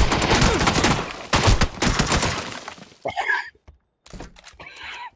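A person coughing hard: two loud, harsh fits of about a second each, the second fading out, then softer breathy vocal sounds.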